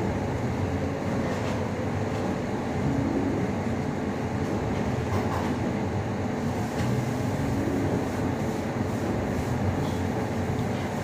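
Steady low mechanical rumble with a faint constant hum.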